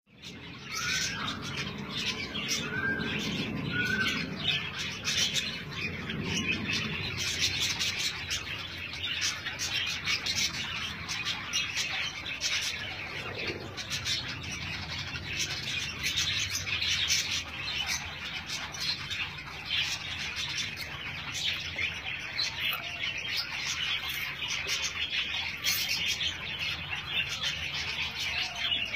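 Budgerigar and cockatiel chirping: a continuous fast chatter, with three short rising calls in the first few seconds.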